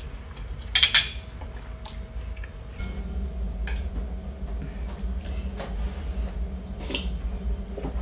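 Metal fork and spoon clinking and scraping against a ceramic bowl and plate during a meal. A louder clatter of dishes comes about a second in, then single light clinks every second or two.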